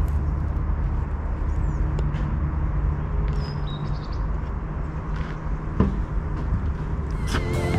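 Outdoor background: a steady low rumble with a few short bird chirps between about one and a half and four seconds in, and a single knock near six seconds in.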